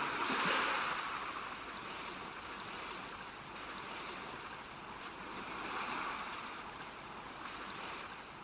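Soft rushing, surf-like noise from an intro sound effect. It swells near the start, eases off, and swells again about six seconds in.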